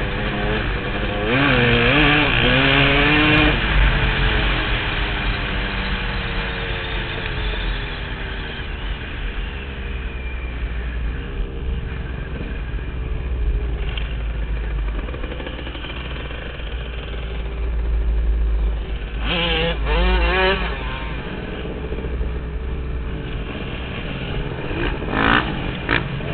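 KTM dirt bike engine running under way, revving up and easing off several times, with a steady low rumble underneath.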